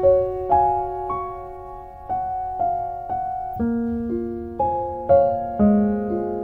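Piano music: a slow melody of single notes and chords, one struck about every half second, each ringing out and fading before the next.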